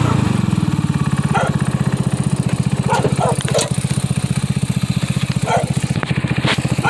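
Trailmaster XRS mini buggy's 150cc big-bore engine idling with a steady putter. A dog barks several times over it.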